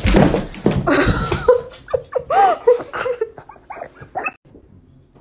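Dalmatian puppy whining and yelping in excitement at a greeting: a run of high cries that rise and fall in pitch, loudest in the first second and a half, dying away after about four seconds.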